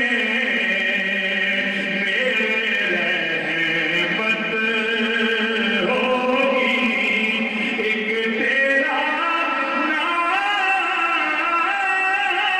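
Male voice singing a naat, an Urdu devotional song, into a microphone in long held phrases that glide between notes.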